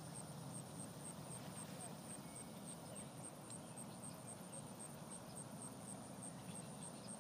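Quiet rural outdoor ambience: a steady low background hiss with a faint, high insect chirping repeating evenly about four times a second.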